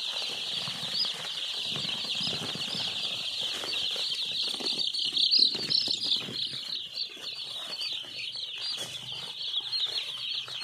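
A large flock of three-day-old chicks peeping all together: a dense, steady chorus of high cheeps, loudest a little past the middle.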